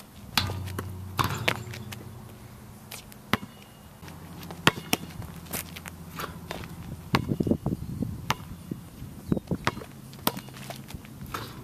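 Basketball bouncing on an asphalt court and knocking against the hoop during a dunk, with sneaker footsteps: a scattered series of sharp knocks and thuds over a low steady hum.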